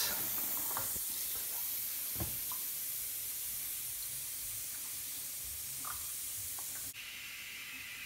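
Steady hiss of steam escaping from an Atomic stovetop espresso machine, now holding full pressure after new seals. The hiss changes abruptly about seven seconds in, and there are a few faint clinks.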